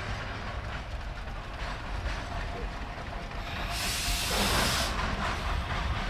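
Hillcrest #1 Shay geared steam locomotive working along the line with a low rumble and soft exhaust chuffs about a second apart. A loud burst of steam hissing lasts about a second, just past the middle.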